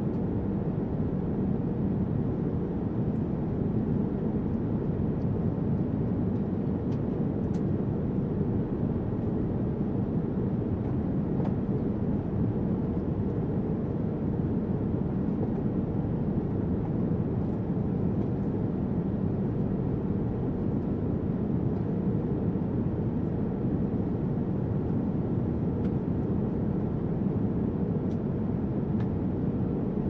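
Steady cabin noise of a jet airliner in cruise, heard inside the cabin: an even, low rush of engine and airflow with a faint steady hum.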